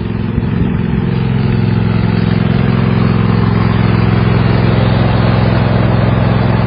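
Tractor engine running steadily with a low, even hum. It grows a little louder over the first second, then holds.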